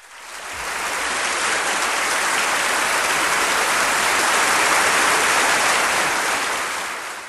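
Audience applauding: dense, steady clapping that swells up over the first second and fades out near the end.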